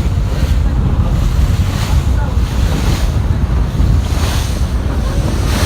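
Wind buffeting the microphone on a moving boat at sea, a loud, steady rumble with the rush of water around the hull and a few brief swells.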